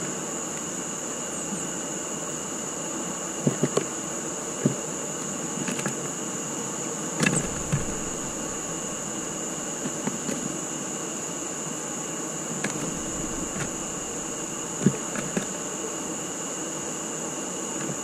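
Small birds landing and pecking at sunflower seeds on a wooden feeder floor: scattered taps and knocks, a little cluster about three and a half seconds in, a sharper knock about seven seconds in and another near fifteen seconds. Under them runs a steady hiss with a constant high whine.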